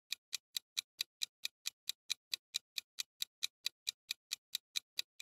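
Clock-ticking sound effect marking a quiz countdown timer: a steady run of short, sharp ticks, about four to five a second.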